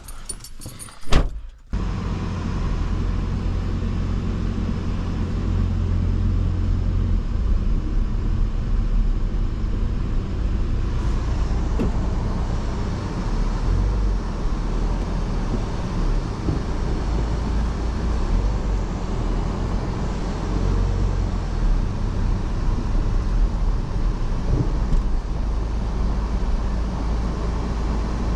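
A sharp thump about a second in, then a car running steadily, with a deep low hum of engine and road noise.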